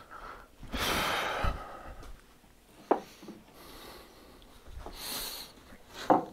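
Workbench handling noise: a rasping swish lasting about a second, then a single sharp knock, a brief soft hiss, and another knock near the end.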